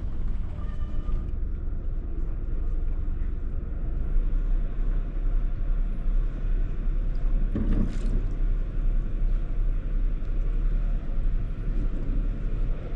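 Steady low rumble of a sailing catamaran motoring slowly, with wind buffeting the microphone; the rumble grows stronger about four seconds in, and a brief louder noise comes about eight seconds in.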